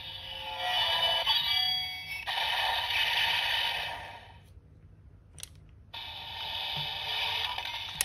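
Bandai DX Enkenken Noroshi toy sword playing its electronic music and sound effects through its small built-in speaker. The sound stops for about two seconds partway through, with a single click in the gap, then starts again.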